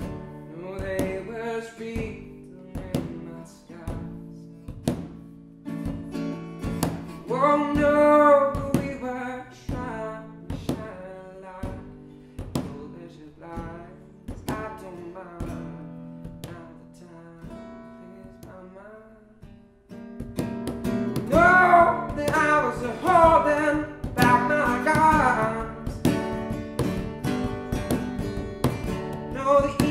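Folk song with strummed acoustic guitar keeping a steady beat and a man singing. The music thins out briefly a little before two-thirds of the way through, then comes back fuller and louder with stronger singing.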